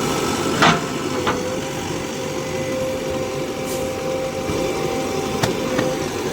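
JCB 3DX backhoe loader's diesel engine running steadily, with a steady whine over it and a sharp knock about a second in.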